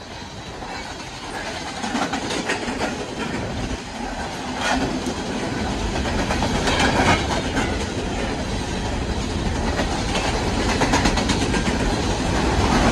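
Train passing at speed: rail cars rumbling by with repeated wheel clicks over the rail joints, growing a little louder toward the end.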